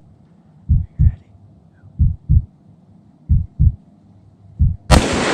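A heartbeat sound effect: four pairs of low thumps, about 1.3 s apart. Near the end a single rifle shot cracks out, much louder than the rest, and its echo rolls away.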